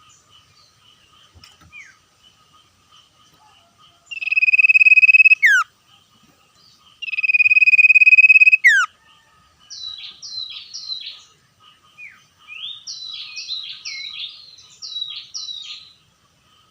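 Common iora singing: two long, loud held whistles, each ending in a quick falling note, then a run of short, rapid chirping notes. A faint steady high tone runs underneath.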